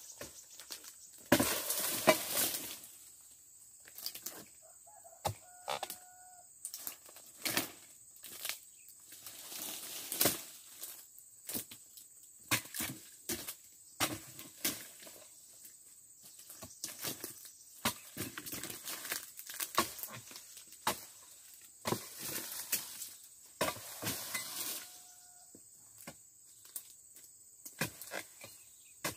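A sharp dodos (chisel-bladed pruning pole) chopping into the hard bases of oil palm fronds, an irregular series of sharp strikes. There are two longer rustling stretches, one near the start and one about three-quarters through, as cut fronds fall through the crown.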